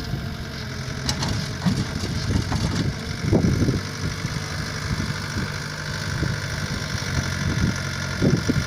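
Diesel engine of heavy machinery running steadily at idle, with a few brief soft knocks over it.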